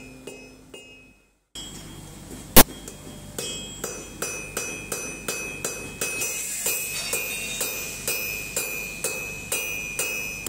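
Plucked gusli music fades out in the first second or so. After one loud sharp strike, a blacksmith's hand hammer beats hot iron on a steel anvil in a steady rhythm of about two to three ringing blows a second.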